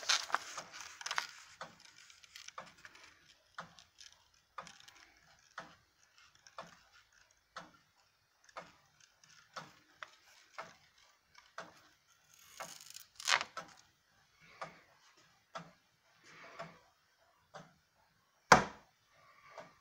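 Circa-1790 Gideon Roberts tall case clock with a wooden movement, just set going and ticking steadily about once a second. A single loud knock near the end.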